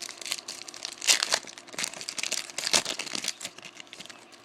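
A Topps Chrome foil card-pack wrapper being torn open and crinkled. It makes a dense run of crackles, loudest about a second in and again near three seconds, and fades out near the end.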